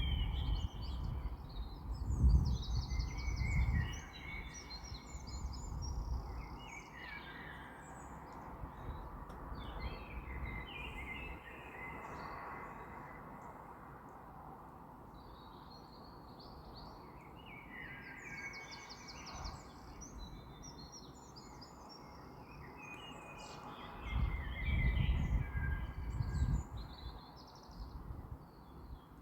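Several small birds chirping and twittering, with short trilled and repeated calls overlapping. A low rumble comes through during the first few seconds and again near the end.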